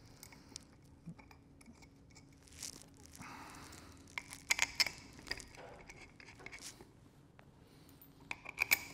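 Faint handling clicks and clinks of steel bolts and the metal top cap of a Schmidt Thompson Valve II being set in place, as the bolts are started into their threads by hand. The clicks come in small clusters about halfway through and again near the end.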